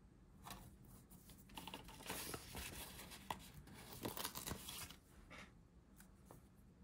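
Faint rustling of a paper sticker sheet being handled, and a sticker peeled from its backing, loudest from about two to five seconds in, with a few small clicks.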